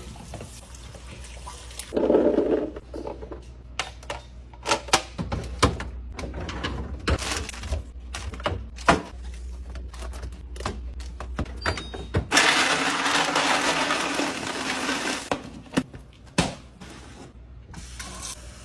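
Food containers and groceries being handled and set down: a string of sharp knocks, clicks and clinks. About twelve seconds in, a steady rushing noise runs for some three seconds and then stops.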